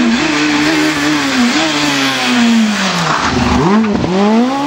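Rally car engine at high revs coming in fast, its note falling as it slows for a turn about three seconds in, dipping twice sharply, then climbing again as the car accelerates away through the corner.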